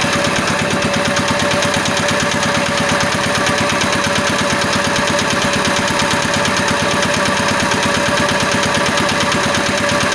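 Small engine of a belt-driven power generator running steadily, with an even, rapid firing beat and a steady whine. It does not bog down as the house wiring is connected to it, the sign that the wiring connection is sound.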